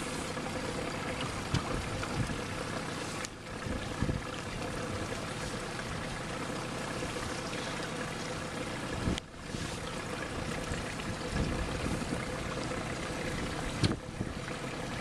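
A small boat's outboard motor running steadily, with water rushing and slapping against the hull. The sound dips briefly twice, about three seconds in and about nine seconds in.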